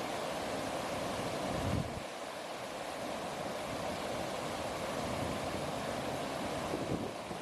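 Steady rush of flowing river water, with a brief low thump a little under two seconds in.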